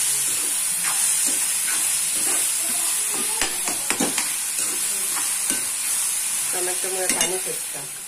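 Chopped onions and tomatoes sizzling in oil in a pan, with a spatula scraping and clicking against the pan as they are stirred.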